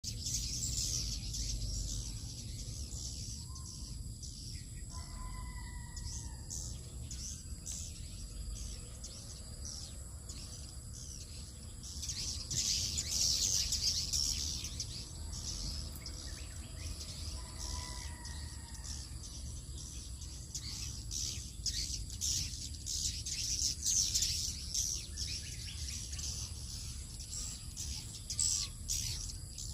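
A flock of edible-nest swiftlets chirping as they fly in to roost at dusk: dense, rapid, high-pitched chirps that swell to their loudest about halfway in and again later.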